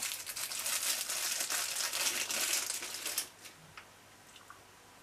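Wrapper of a chocolate candy crinkling as it is unwrapped by hand, stopping about three seconds in, followed by a few faint ticks.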